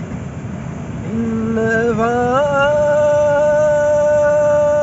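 A person's voice holding a long sung note: it comes in about a second in, slides up, then holds steady.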